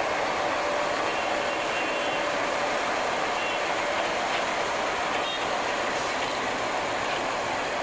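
YDM4 metre-gauge diesel-electric locomotive running steadily as it rolls slowly past close by.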